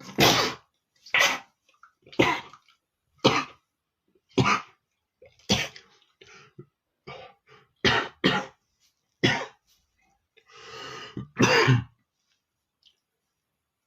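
A man with flu in a sneezing fit: about ten short, explosive sneezes roughly a second apart, the last one coming after a long drawn-in breath.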